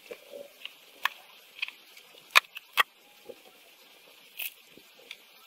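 Scattered small clicks and taps from tools and wires being handled while wires are soldered onto a circuit board. The two sharpest clicks come close together in the middle, over a faint steady hiss.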